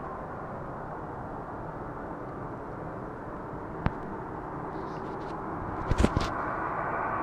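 A steady low droning rumble with a faint hum in it, swelling a little near the end, which the uploader presents as a strange sound from the sky. A sharp click breaks through about four seconds in, and three louder clicks about six seconds in.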